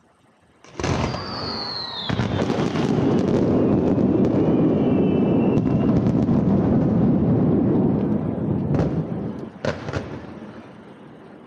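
Aerial fireworks going off: a sudden volley of shell bursts with a falling whistle about a second in, then several seconds of dense crackling and booming, tapering off with a few separate sharp bangs near the end.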